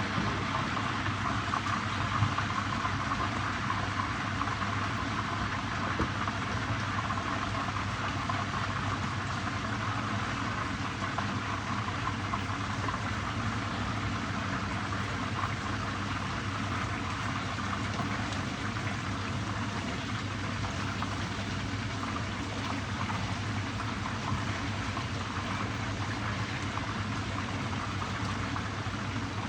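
Fish pan-frying in hot oil, a steady sizzle with fine crackling over a low steady hum.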